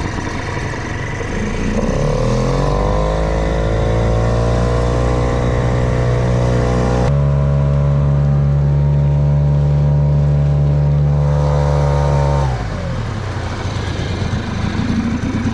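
Small 3.5-horsepower outboard motor on an inflatable dinghy running under way: it revs up about two seconds in, holds a steady note, then throttles back near the end.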